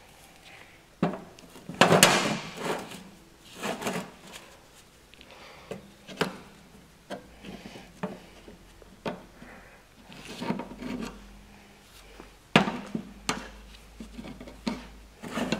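Rear drum brake shoes and adjuster strut handled on a workbench: irregular metal clinks, knocks and short scrapes. The loudest clatter comes about two seconds in, with another sharp knock near the end.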